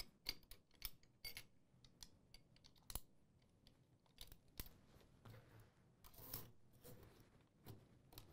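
Faint, scattered metal clicks and light scrapes of M2 heavy machine gun parts being handled while its timing nut is moved up a notch and the parts are put back. One sharper click comes about 3 s in and a small cluster near 6 s.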